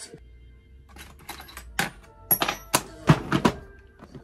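A quick, irregular run of clicks, knocks and rattles from small tools and a plastic tool case being handled and closed on a wooden workbench, the loudest knocks about three seconds in.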